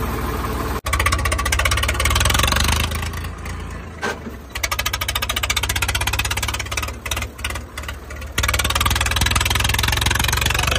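Tractor diesel engine running while the tractor is driven, with a dense, even firing beat. The sound breaks off for an instant about a second in and shifts abruptly twice more.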